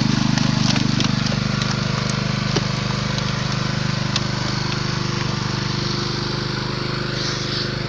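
A small engine running steadily at an even speed, with a few faint clicks over it.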